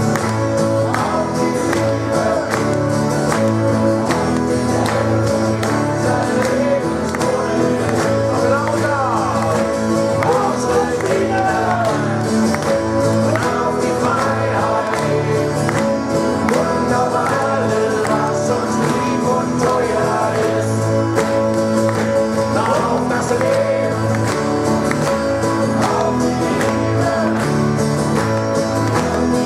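Live rock band playing a song with a steady beat, with singing and guitars.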